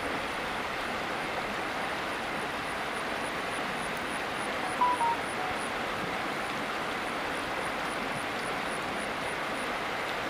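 Steady rush of flowing river water, with a brief two-note chirp about five seconds in and a faint regular high ticking.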